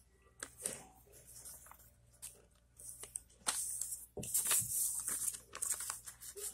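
A sheet of paper rustling and crinkling as it is handled and folded into a triangle: a few soft taps and rustles at first, then louder, steadier rustling from about halfway.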